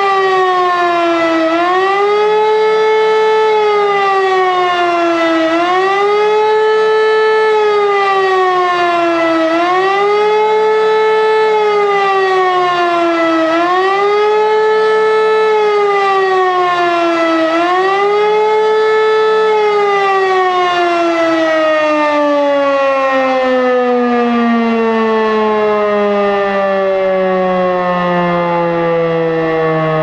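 E57 electric rotor siren sounding the wailing public-warning signal, its pitch rising and falling about every four seconds, five times. About twenty seconds in the motor is switched off and the tone slides slowly and steadily down as the rotor coasts.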